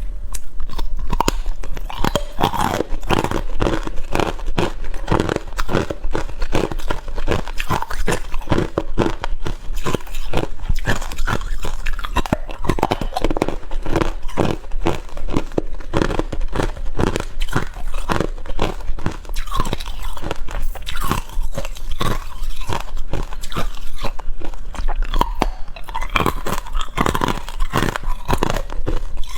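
Ice being bitten and chewed: a dense, continuous run of sharp, irregular crunches.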